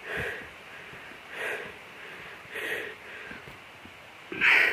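A person breathing hard, four heavy breaths about a second apart, the last one loudest.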